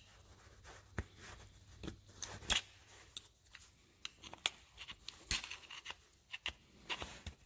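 Flat-blade screwdriver prying at the snap ring on a Tru Count clutch hub: scattered small metal clicks, taps and scrapes.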